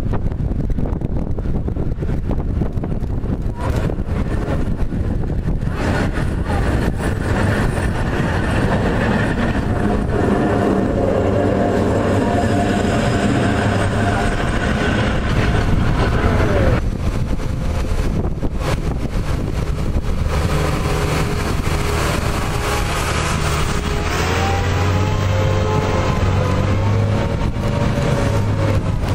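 Street trams on rails: a vintage tram rumbles past close by, its motor and gear whine dropping in pitch as it goes by about halfway through. Near the end, a yellow articulated tram comes up with a rising electric motor whine over the rumble of its wheels on the track.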